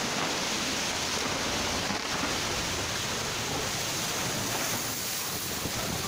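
Muddy floodwater rushing in a torrent, a steady, unbroken rush of noise.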